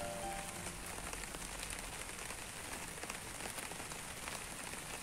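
Steady rain falling on broad leaves, a dense even hiss made of many small drop ticks. The last held notes of music die away within the first second.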